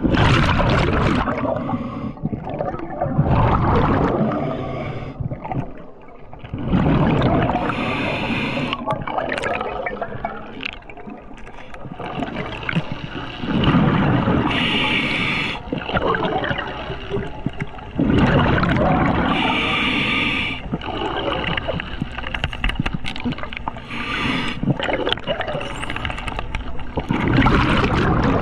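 A scuba diver breathing underwater through a regulator. Rumbling gushes of exhaled bubbles come every few seconds, several of them followed by a brief hiss of inhaling.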